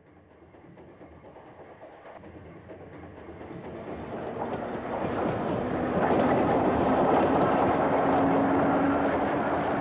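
North Shore Line electric interurban train approaching and passing, growing steadily louder over about six seconds. A steady low hum sits under the noise as it goes by.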